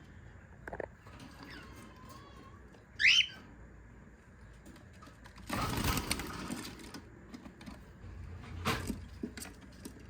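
A cockatiel gives one short chirping call about three seconds in. About two seconds later comes a longer rustling noise, and a sharp knock follows near the end, with faint clicks in between.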